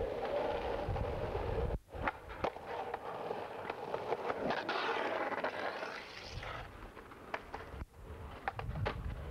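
Skateboard wheels rolling on asphalt, with sharp clacks and knocks of the board, plus a steady hiss of outdoor noise. The sound drops out briefly twice.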